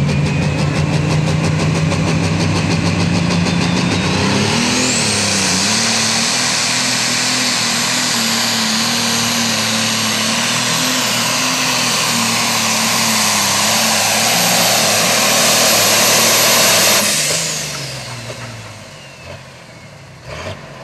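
John Deere pulling tractor's turbocharged diesel engine running flat out while hauling the sled, with a high turbo whine that climbs about four seconds in and holds. Near the end the throttle comes off and the engine and whine wind down quickly.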